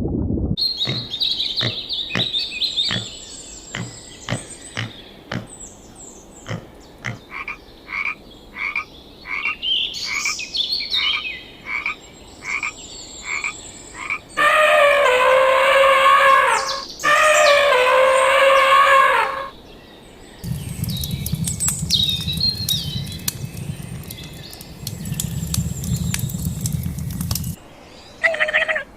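A frog croaking over and over, short calls about two a second for most of the first half. Then come two long, loud, wavering calls from another animal, each a couple of seconds long, followed by a low rumble with faint high chirps.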